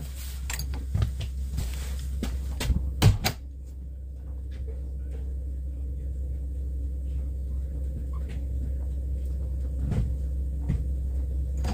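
A wooden door being opened and handled: its knob and latch click and the door knocks several times in the first few seconds, loudest about three seconds in, then only a few light ticks over a steady low hum.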